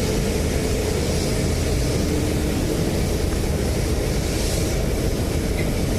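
Steady rumble and hiss of airliner jet engines running, with a faint steady whine over the low roar.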